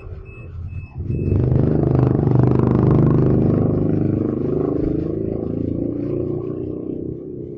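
DEKES sliding-gate opener's electric motor starting about a second in after a few short beeps from the controller, running steadily for about six seconds, then stopping. This is a test run after work on its capacitor.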